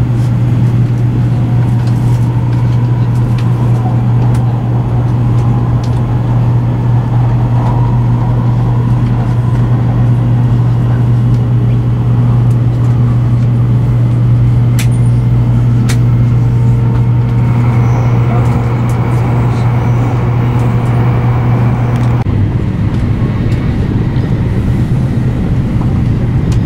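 Cabin noise of a Shinkansen bullet train running at speed: a loud, steady low hum and rush that shifts in tone a few seconds before the end.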